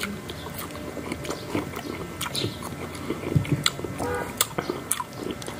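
Close-up mouth sounds of people biting and chewing slices of ripe Indian mango: soft wet smacks and clicks scattered irregularly throughout.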